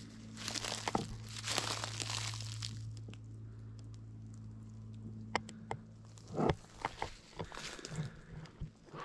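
Footsteps crunching and crinkling through dry leaf litter and pine needles. There is one stretch of crunching near the start, then a run of sharper crunches in the last three seconds.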